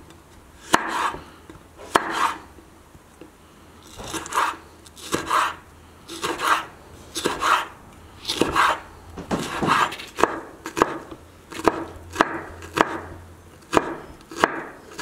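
Broad-bladed kitchen knife chopping a red chili pepper very finely on a wooden cutting board: separate knife strokes knocking on the board, about one a second.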